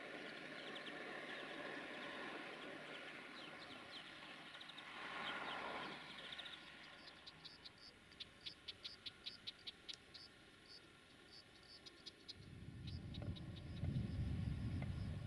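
Faint noise of a distant train fading away, then an insect chirping in a rapid series of short high clicks. About 12 seconds in, a low rumble comes up and becomes the loudest sound.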